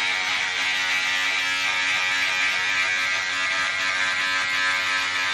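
Handheld electric beard trimmer running against the chin: a steady, unchanging buzz.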